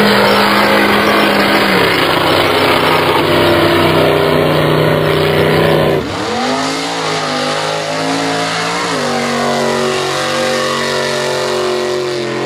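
Mud-racing trucks' engines running hard at high revs while the trucks drive through a mud pit. The engine pitch drops about two seconds in, the sound switches abruptly to another engine about six seconds in, and that engine revs up and then drops back near nine seconds.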